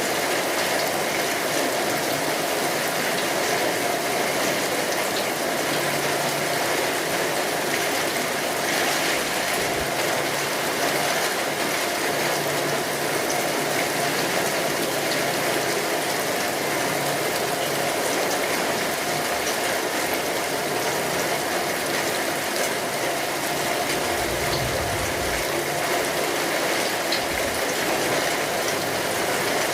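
Steady rainfall, an even continuous hiss of falling rain.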